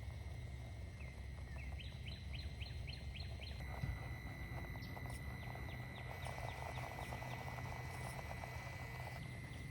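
A bird singing two runs of quick, short rising chirps, about five a second, over a steady low rumble and a faint steady high tone.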